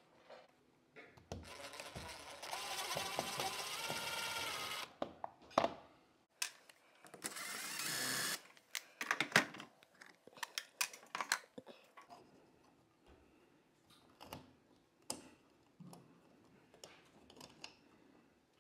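Cordless drill running in two bursts, one of about three and a half seconds and then one of about a second and a half, backing out the two screws of a ceiling cover plate. Scattered light clicks and knocks follow.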